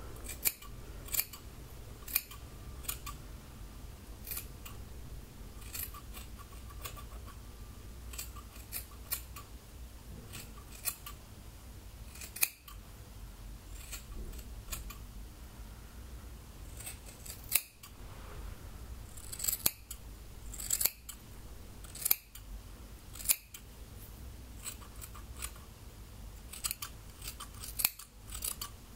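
Scissors snipping through wet hair in a self-haircut: short, crisp snips at an uneven pace, about one or two a second, some in quick little runs and a few louder than the rest.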